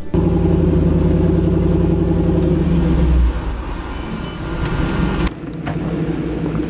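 Truck engines running hard under load during an off-road recovery pull, as a stuck pickup is towed out by rope. The sound changes about three seconds in and drops sharply about five seconds in.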